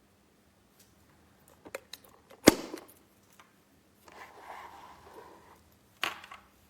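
Sharp clicks and knocks of something being handled. The loudest comes about two and a half seconds in and another near the end, with a short soft scraping noise between them.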